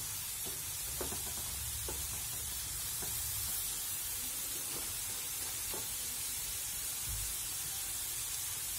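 Flour-coated potato fries sizzling steadily in hot oil in a frying pan, near the end of frying as they turn golden and cooked through. A few faint ticks come through as a wooden spatula stirs them.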